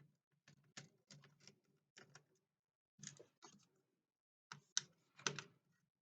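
Faint, scattered clicks and ticks of a small screwdriver backing out the graphics card screws inside a laptop, with metal parts lightly handled; two louder clicks come a little under five seconds in.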